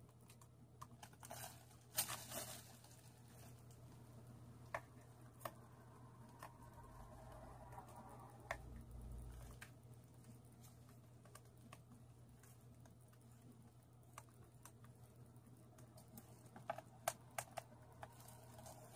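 Faint, scattered clicks and taps of a plastic anime figure's parts being handled and fitted together as the arms are pressed on, with a small cluster of clicks near the start and another near the end, over a low steady hum.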